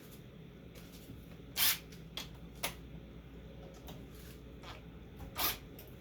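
A few separate short clicks and rustles of hand tools and parts being handled during minibike disassembly, the loudest about a second and a half in and again near the end, over a low steady hum.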